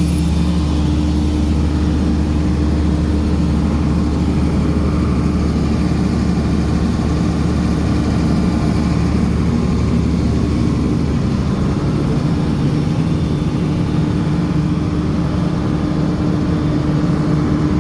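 Heavy machinery engine running steadily at an even speed, a constant low drone that neither rises nor falls.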